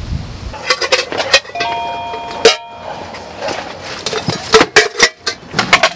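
Sharp clicks and knocks of camping kitchen gear and a small glass jar being handled and set down, with a steady tone at several pitches sounding for just over a second about a second and a half in.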